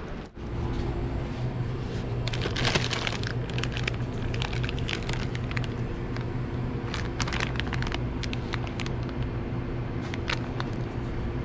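Plastic instant-noodle packets crinkling as they are handled and pulled off a shelf, in scattered crackly bursts over a steady low hum.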